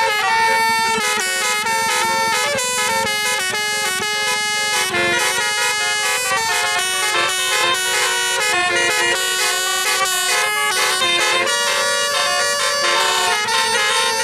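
Indonesian bus "telolet" multi-tone air horns playing a melody, the notes stepping up and down several times a second without a break.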